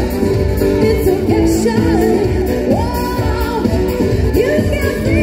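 Loud music with a sung melody over a steady, pulsing beat.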